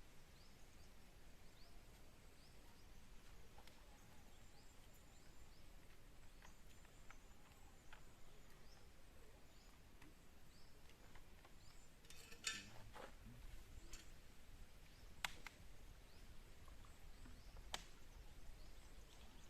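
Faint outdoor ambience with scattered short, high chirps, with three sharp clicks in the second half.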